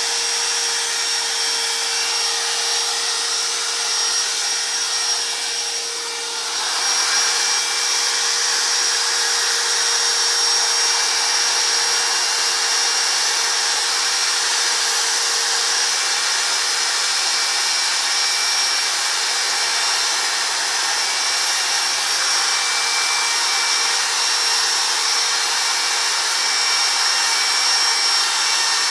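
Handheld power sander running steadily against the wood of a chainsaw-carved log, a hiss with a high steady whine, easing off briefly about six seconds in before carrying on.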